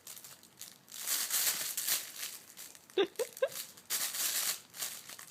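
A baby's feet kicking and rubbing against something crinkly, making spells of rustling crinkle. About three seconds in there are a few short, high baby squeaks.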